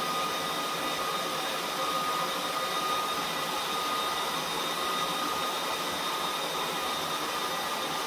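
Dell PowerEdge C6320 server's cooling fans running steadily: an even rush of air with a thin, steady high whine over it.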